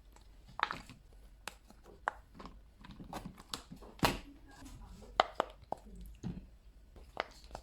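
Fidget toys being pressed and handled by hand: a string of irregular sharp clicks and snaps, about ten in all, the loudest about four seconds in.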